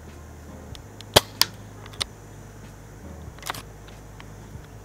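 Ares Amoeba AS02 spring-powered airsoft bolt-action sniper rifle firing one shot: a sharp snap about a second in, followed by a couple of lighter clicks. Around three and a half seconds in comes a short cluster of clicks as the bolt is worked to chamber the next BB.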